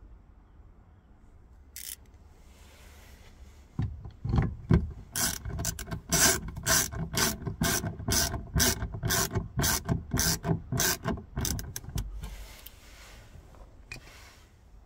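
Hand ratchet clicking in quick strokes, about two or three a second, for several seconds, with a single click a couple of seconds before.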